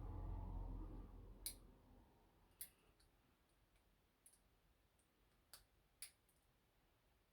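Faint, sparse metallic clicks of lock picks working inside a Yale shutter padlock, five or six ticks spaced about a second apart. A soft low rumble fades out over the first two seconds.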